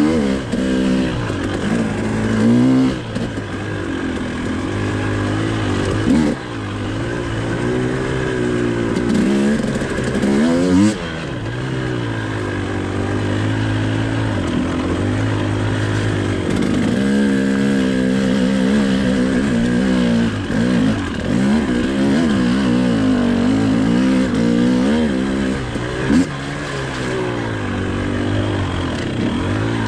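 Husqvarna TE 300i two-stroke enduro motorcycle engine being ridden hard, its pitch rising and falling every second or two as the throttle is worked, with the revs chopped off sharply a few times, around 3, 6 and 11 seconds in.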